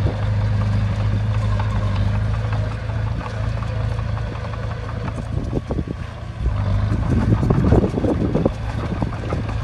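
Diesel engine of a Shantui bulldozer running steadily with a low hum. A few clanks come through in the middle, and a louder, rough rushing noise builds over the last few seconds.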